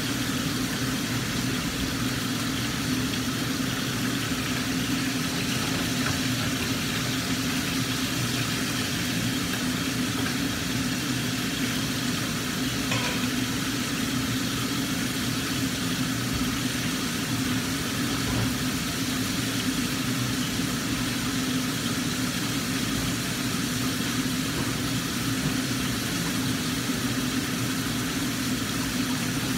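Mackerel frying in a covered wok, a steady sizzle, under the steady hum of a kitchen range-hood exhaust fan.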